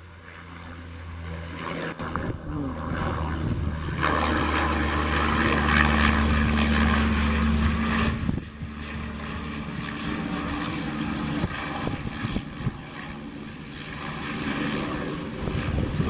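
Cessna 208 Caravan's single Pratt & Whitney PT6A turboprop engine and propeller running as the aircraft rolls along the runway after landing: a steady droning hum over a turbine hiss, growing louder from about four seconds in and easing off after about eight seconds as it passes.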